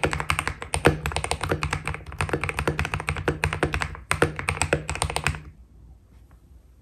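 Fast typing on a Keydous NJ80 mechanical keyboard with lubed KTT Red Wine linear switches, steel plate and PBT Cherry-profile keycaps: a quick, even run of keystrokes with a deep bottom-out sound, stopping about five seconds in.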